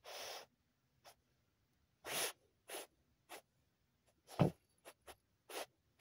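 Jagdterrier digging into a burrow with its teeth and muzzle, head down the hole: a string of short, irregular noisy bursts of snuffling and scraping at the soil, the loudest about four and a half seconds in.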